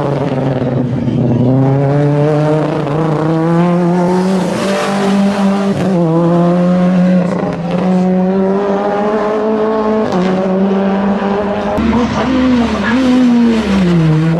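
VW Golf Mk1 race car's engine running at high revs through a cone slalom, its pitch dipping briefly a few times and falling near the end as the car slows.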